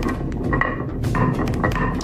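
Marbles rolling and clattering down a wooden marble run: many quick clicks over a steady low rumble, with an on-off high tone running alongside.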